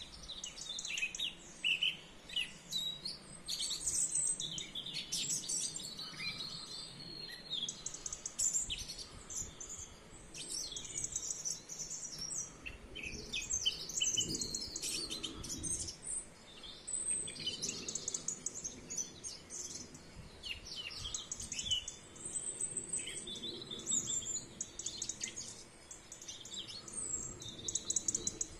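Dawn chorus: several birds singing at once, with overlapping high chirps, whistled phrases and rapid trills.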